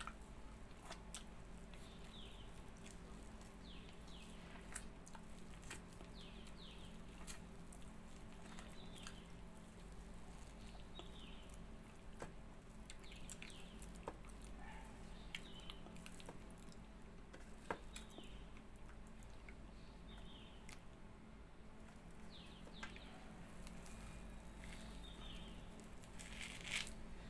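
A small bird chirping over and over, short high falling chirps about once a second, with faint wet smacking and clicking of hand-eaten ripe palmyra palm fruit pulp.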